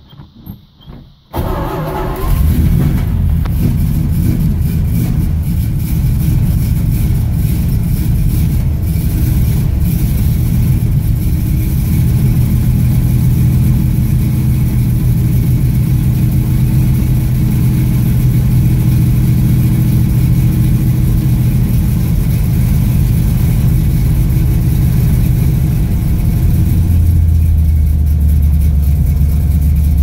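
A 383 V8 catches on a cold start about a second in, then runs at a steady fast idle. Near the end the idle drops to a lower, deeper note.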